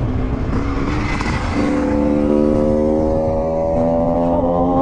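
Wind rumbling on the camera microphone of a mountain bike ridden at speed. About a second and a half in, steady sustained tones come in over the wind and change pitch in steps.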